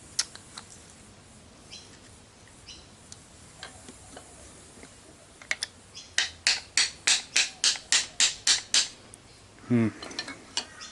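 Hand-tool work on a piston's wrist pin after its Spiralox retaining clip is off: a few scattered metal clicks, then a quick run of about a dozen even, light metal strokes, roughly four a second. A short grunt from the mechanic near the end.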